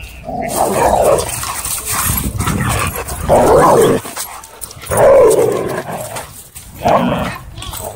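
Several dogs growling and barking in a rough scuffle at close range, in four loud outbursts.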